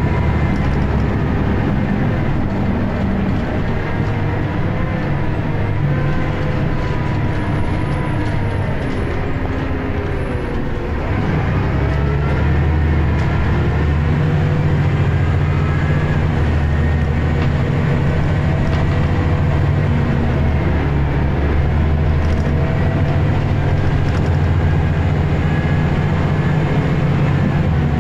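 Scania L94UB bus's diesel engine and ZF automatic driveline running at speed, heard from inside the saloon. The engine note eases off about ten seconds in, then pulls harder and louder for the rest.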